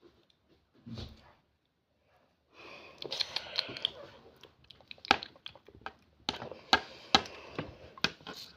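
Dalgona honeycomb toffee being crunched close to the microphone: a quick run of sharp, irregular cracks and crackles that starts about two and a half seconds in.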